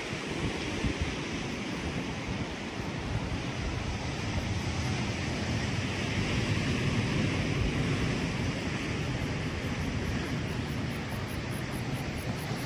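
Wind buffeting the microphone in a steady, gusty rumble, over the continuous hiss of ocean surf.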